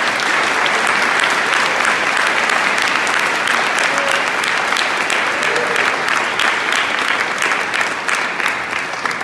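A crowd applauding: many hands clapping at once in a dense, steady patter that tails off near the end.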